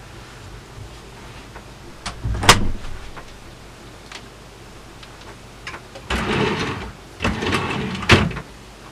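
Bedroom door pushed shut with a sharp bang about two and a half seconds in. Two longer stretches of rustling and handling noise follow, the second ending in a sharp knock.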